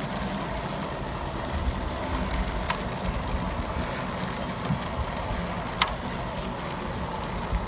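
Steady low rumble of a bicycle rolling along an asphalt path, with two brief sharp clicks about three seconds apart.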